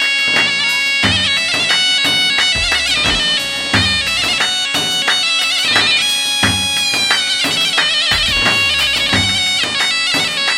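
Wedding dance music: a reedy, nasal wind-instrument melody with a steady drone, over a drum beat.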